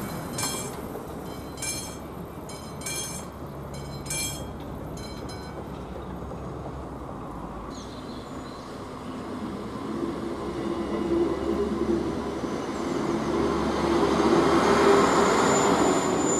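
A train approaching and running past a railway level crossing, its rumble building steadily to loudest near the end. A few short, sharp ringing strokes sound at uneven intervals in the first five seconds.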